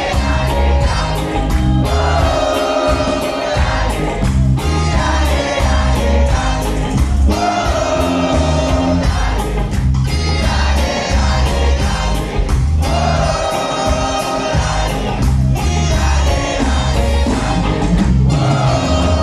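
Reggae band playing live through a club PA, with a heavy, pulsing bass line and sung vocal phrases, recorded from inside the crowd.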